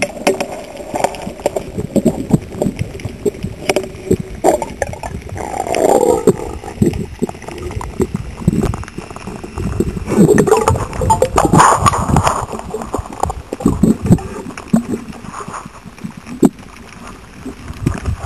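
Water sloshing and gurgling with frequent knocks and clicks, and louder swells of noise about six seconds in and again around ten to twelve seconds.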